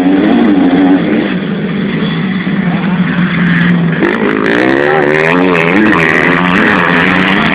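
Motocross dirt bikes' engines revving as the bikes ride past, the pitch rising and falling again and again as the riders work the throttle.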